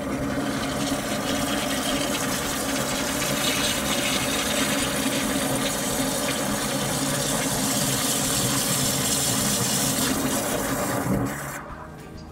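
Grey drain water gushing out of an inlet pipe and splashing into the pooled water of a concrete drain inspection chamber, foaming as it falls: the drain running freely again now that the blockage is cleared. The steady rush cuts off suddenly about 11 seconds in.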